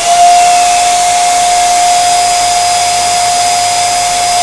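Electric twin-nozzle balloon pump running steadily, its motor giving one steady whine with a rush of air, inflating two 12-inch latex balloons at once.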